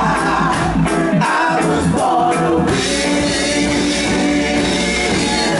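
Live reggae band playing while a vocal group sings together into microphones. A regular drum beat marks the first half, and a bright cymbal-like wash fills the second half.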